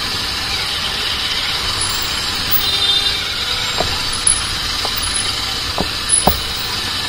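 Royal Enfield Interceptor 650's parallel-twin engine running at low speed, with a steady wash of wind and street noise and a few short taps in the second half.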